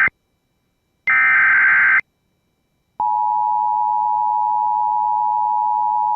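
Emergency Alert System broadcast: the end of one SAME digital header burst, then a second one-second data burst of warbling tones that encodes the tornado warning. After a second's pause, the steady two-tone EAS attention signal begins about three seconds in and holds.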